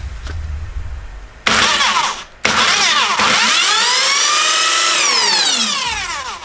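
Cyclone mid-drive electric motor on an eBike whining under throttle during a burnout: a loud whine with many overtones rises, cuts out briefly, then climbs to a peak and winds down as the rear wheel spins up and slows.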